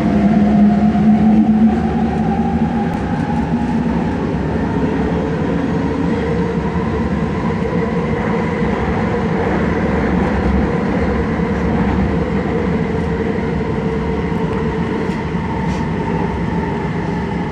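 Vancouver SkyTrain elevated metro train running along the guideway, heard from inside the car. A steady rumble of the running gear carries a whining tone that slowly shifts in pitch.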